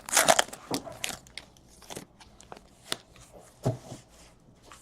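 Crinkling and tearing of a baseball card pack's wrapper, loudest in the first half second, then fainter rustles and a few light clicks and one dull tap as the cards are handled.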